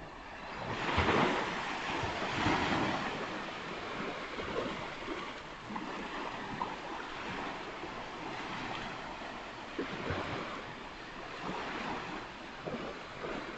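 Ocean surf: waves breaking and washing up the beach, the loudest wave swelling about a second in.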